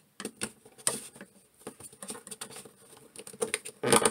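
Irregular light clicks and taps of plastic DC Multiverse action figures being handled and posed on a tabletop, with a louder cluster of knocks near the end.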